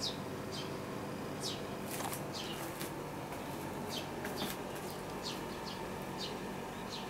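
Small birds chirping, short falling chirps about one or two a second, over a steady low background hum.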